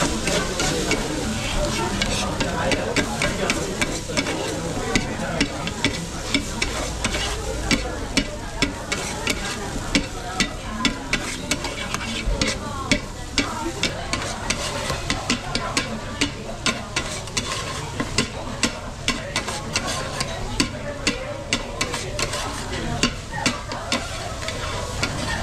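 Monjayaki batter of cabbage and broth sizzling on a hot iron teppan griddle while metal spatulas chop and stir it, their edges tapping and scraping on the griddle in rapid, repeated clicks.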